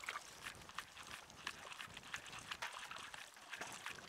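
Faint, irregular small ticks and light splashing of shallow water lapping at a rocky shoreline.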